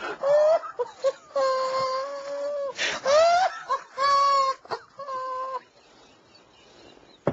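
A man's stifled laughter coming out as high-pitched, whining squeals, about five of them, one rising sharply midway. It then drops to quiet gasps for the last second and a half.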